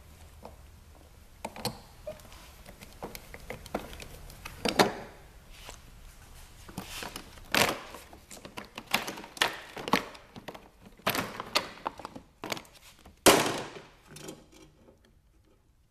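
Snowmobile plastic body panels being unclipped and pulled off by hand: scattered knocks, clacks and plastic rattles, with a few sharper knocks, the loudest near the end.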